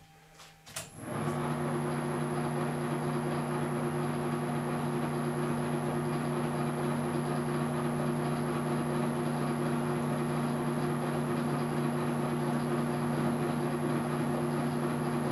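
A 1972 Weiler Matador SV lathe clicks into gear about a second in, then runs steadily with a low hum and a thin high whine while it turns the steel workpiece for a thread-cutting pass on an M18x1.5 thread.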